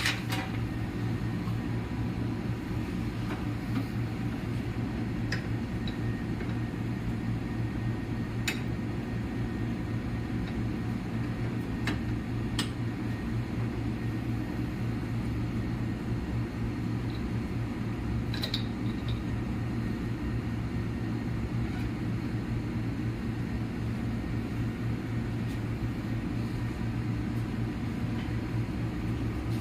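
Laboratory microwave pyrolysis unit running: a steady low electrical hum with fan noise, and a few faint clicks.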